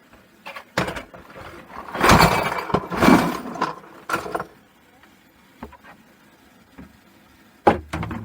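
Metal clock mechanisms being handled and put down, clattering in several bursts, the loudest about two and three seconds in, with a couple of sharp knocks near the end.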